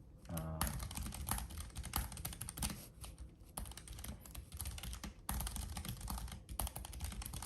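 Typing on a Keychron K7 low-profile mechanical keyboard fitted with tactile Banana switches: a fast run of key clicks with a few short pauses.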